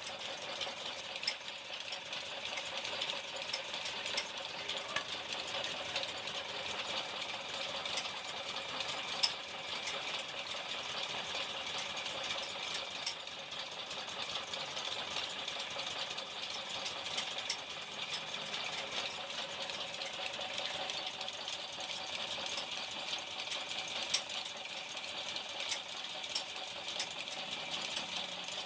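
A workshop machine running steadily with a light rattle and occasional small clicks.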